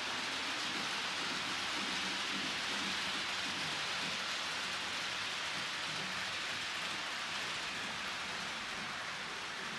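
Model train rolling along the layout track: a steady whirring hiss of small wheels on metal rails and the locomotive's electric motor.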